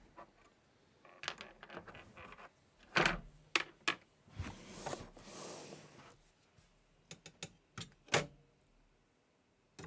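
Handling noises of PC cooling hardware being picked up and set down: a series of sharp clicks and knocks, with a brief rustle about five seconds in.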